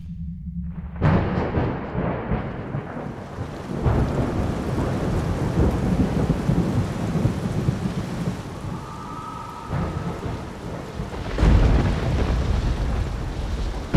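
Heavy rain falling, with rolling thunder, starting suddenly about a second in. The deepest, loudest rumble of thunder comes near the end.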